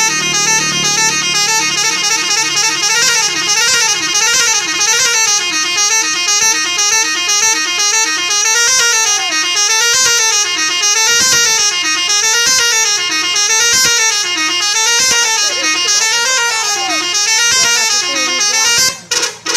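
Bus telolet horn, the multi-tone musical air horn of Indonesian buses, sounding a long warbling tune. Its pitch swoops up and down over and over, and it cuts off just before the end.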